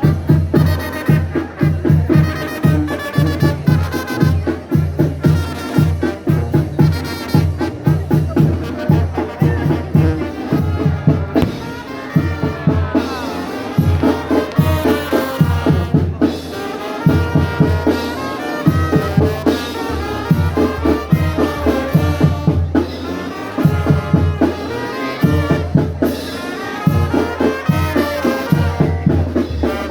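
Brass band music: trumpets and trombones playing over drums with a steady, driving beat.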